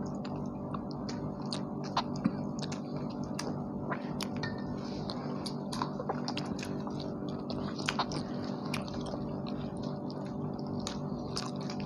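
People chewing and biting into tandoori chicken and naan, with many small irregular mouth smacks and clicks over a steady background hum.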